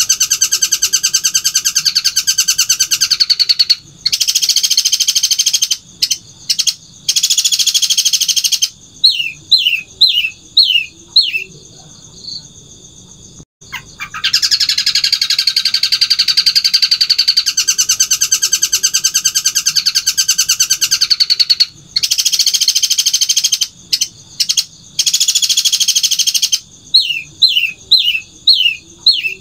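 Long-tailed shrike (cendet) singing the chattering song that keepers call its 'kuntilanak' voice, in long, very fast rattling bursts. Shorter bursts and a run of about five quick downward-slurred notes come between them, and the whole sequence plays twice.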